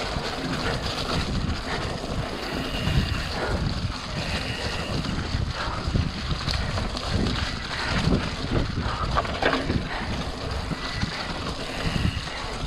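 Mountain bike riding over a muddy, rutted dirt trail, heard from a chest-mounted camera: wind noise on the microphone, tyres rumbling and splashing through mud and puddles, and the bike rattling with repeated knocks over bumps. A few brief high squeaks come through as well.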